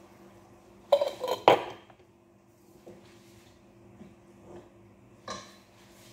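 Glass jars and lids clattering against each other and the kitchen counter: a quick run of clinks and knocks about a second in, then a single knock near the end.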